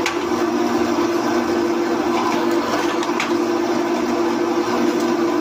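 Pillar drill press running steadily with a steady hum while its bit bores a hole through a flat steel bar. Two short metallic clicks come at the start and about three seconds in.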